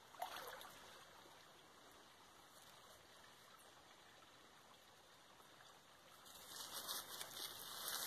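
Near silence: faint outdoor background hiss that grows louder about six seconds in.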